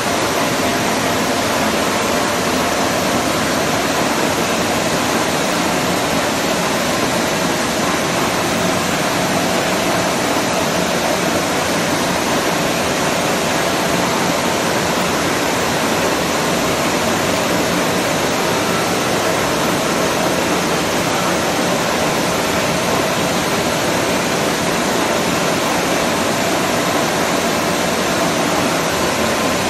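Large milling machine running, a steady, even hiss and hum that doesn't change.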